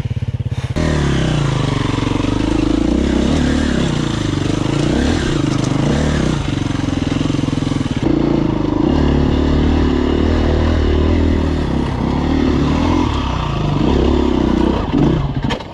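Husqvarna TE300 two-stroke dirt bike engine running under constantly changing throttle while riding a rutted trail, its note rising and falling; the sound drops away suddenly just before the end.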